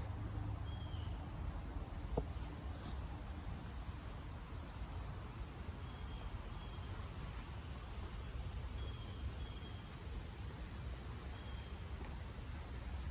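Outdoor ambience of insects trilling steadily, with a few short high chirps scattered through it and a low rumble underneath.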